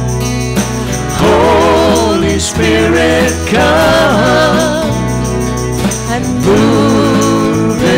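Live church worship band playing, with a woman singing lead over drums, acoustic guitar, keyboard and steady sustained bass notes.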